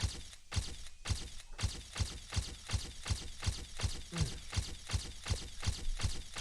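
A quick, evenly spaced series of sharp hits, each with a low thump, about three a second and quickening slightly.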